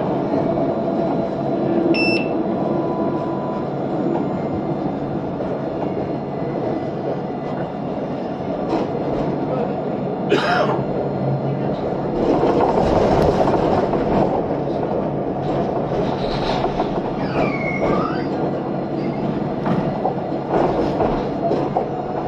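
Tram running along street track with a steady rumble of motor and wheels. A short electronic beep sounds about two seconds in, and a few brief high gliding squeals come later on.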